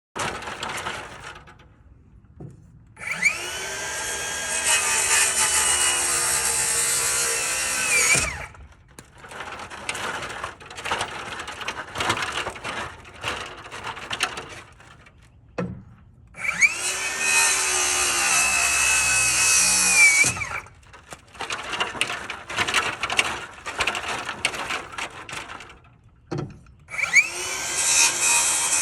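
Power saw cutting through the wooden truss ends three times, each cut a few seconds long: the motor whines up, runs through the wood and winds down. Between cuts there are scattered knocks and clatter of handling wood.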